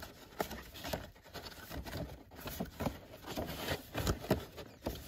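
Manila file folders in an expanding accordion file being leafed through by hand: irregular paper rustling and light taps and scrapes, with a few louder rustles around four seconds in.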